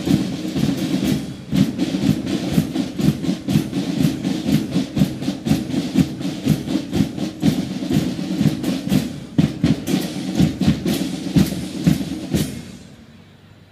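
Marching band playing, its drums beating a fast, steady rhythm. The music stops abruptly about a second before the end.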